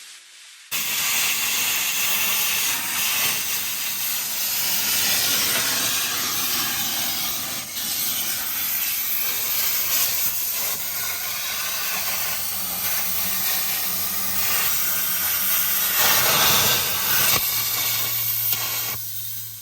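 Steady, loud hiss of a pressurised spray, starting abruptly about a second in and cutting off near the end.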